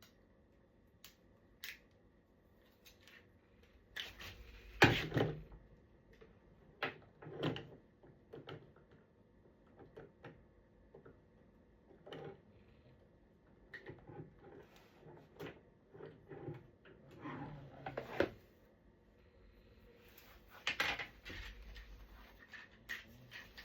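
Parts of a Graco Pack 'n Play playard being handled and fitted together during assembly: scattered clicks, knocks and rustling, the loudest about five seconds in and again near the end.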